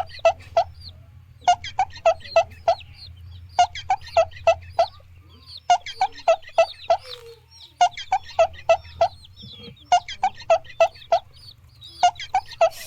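A chicken clucking in quick runs of four or five clucks, a run about every two seconds, over a faint low hum.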